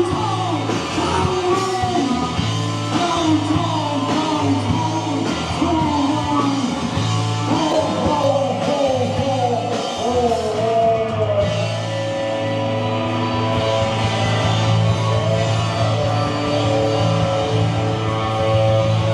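Live rock band playing: a singer over electric guitars, bass and drum kit, with the vocal lines giving way to held guitar chords in the last part.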